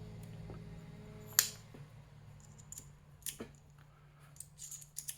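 Small metal clicks from handling an aluminium-bodied precision screwdriver and its steel bits: one sharp click about a second and a half in, then a few fainter clicks near the middle and end.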